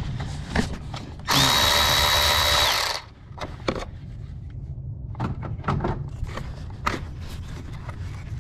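Cordless electric ratchet running for about a second and a half, loosening a 10 mm coil-pack hold-down bolt: a steady whir with a high whine that rises as it spins up and drops as it stops. Light clicks and knocks of the socket and tools follow.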